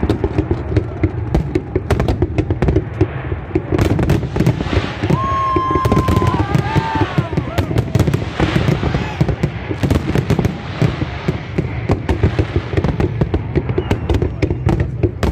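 Fireworks display: a rapid, continuous run of crackling bangs and booms over a dense low rumble, with a brief high whistling tone near the middle.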